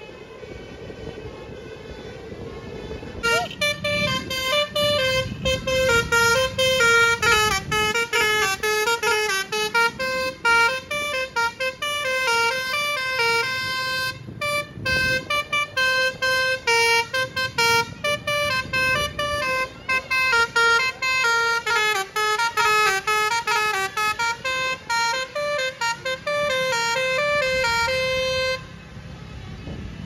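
Basuri telolet bus horn, a multi-trumpet air horn, playing a long, fast melody of stepping notes. It starts about three seconds in, with a brief break around halfway, and cuts off suddenly shortly before the end.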